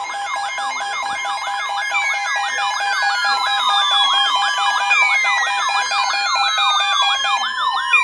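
Several NOAA weather radios sounding their alert alarms at once, signalling an incoming weather warning. A fast warbling tone repeats about five times a second over a steady tone, while slower siren-like sweeps fall in pitch over two or three seconds each, overlapping one another.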